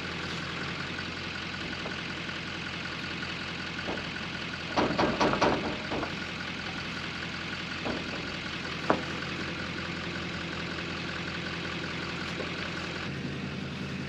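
Combine's diesel engine idling steadily, with a brief rattle about five seconds in and a single sharp click near nine seconds from hands working on the draper header's belt.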